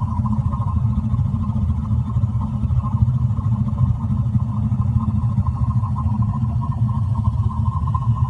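AO Smith boiler water heater running with a loud, steady low rumble and a higher hum that wavers on top. The owner questions whether this noise is normal.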